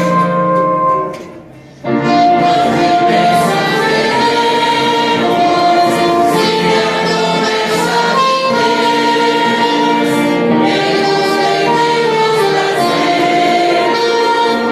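Choir singing a gospel hymn with instrumental accompaniment. The music briefly fades about a second in, then the singing starts about two seconds in and carries on steadily.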